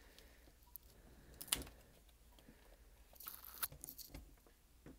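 Faint crinkling and rustling of a thin foil backing sheet being handled over a calculator's circuit board, with a sharp click about one and a half seconds in and a longer rustle a little past halfway.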